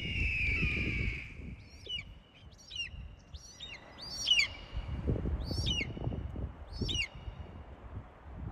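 Wild bird calling: a longer rasping note at the start, then a series of short, high whistled notes, each sliding sharply downward, about one a second.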